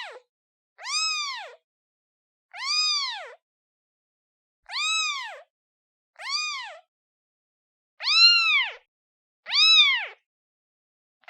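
Newborn kitten meowing for its mother: about six high meows, each rising then falling in pitch and lasting under a second, about a second apart, with the last two louder.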